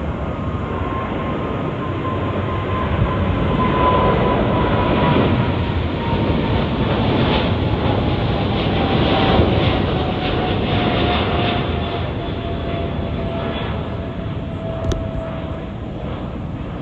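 Jet engines of a British Airways Boeing 777 at takeoff power as it climbs out: a steady rush of jet noise with a whining tone that slowly falls in pitch as the aircraft passes and draws away. The noise swells through the middle and eases off toward the end.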